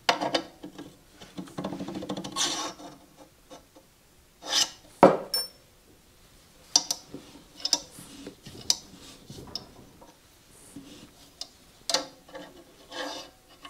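Steel shaft being worked and turned in tight bushings of a flat-belt countershaft: on-and-off metal scraping and clinks, with a sharp knock about five seconds in. The shaft binds, which the builder suspects is a bushing out of line.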